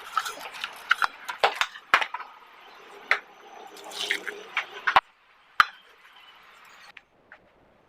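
Water splashing and pouring in a kitchen vessel, with irregular clinks and clicks. It stops about five seconds in, and two sharp clicks follow.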